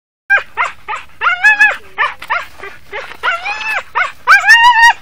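An animal's repeated high whining and yelping calls: short yips mixed with longer drawn-out whines, loudest near the end.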